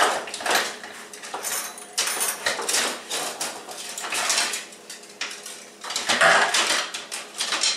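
Kitchen utensils and dishes clattering and clinking in a rapid run of knocks as someone rummages through them for a whisk, loudest a little past the middle.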